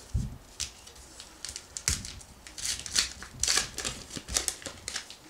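Paper wrapper of a baseball card pack being torn open and pulled apart by hand: irregular crinkling and tearing crackles, the loudest in the middle, with a soft thump at the start.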